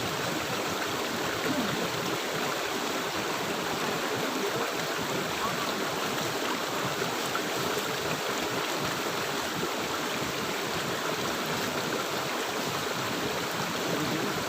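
River water flowing steadily: an even, unbroken rushing wash.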